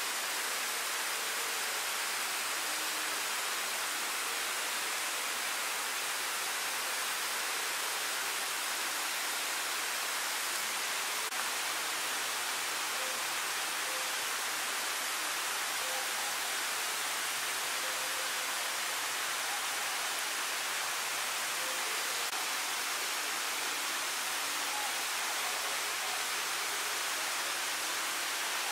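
A steady, even hiss with no separate events, like rushing water or wind.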